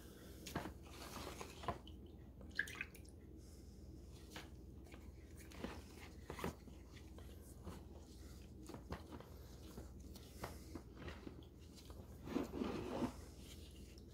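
Gloved hands dipping and turning a black cat figurine in a plastic tub of liquid sealer: faint scattered clicks and knocks, then a brief wet squishing near the end as the piece is squeezed and rubbed in the sealer.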